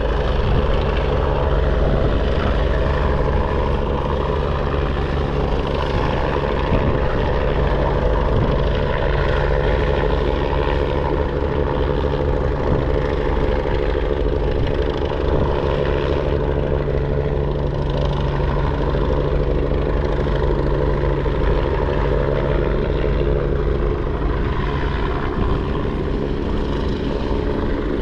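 Helicopter hovering, its rotor and engine giving a steady, unbroken drone.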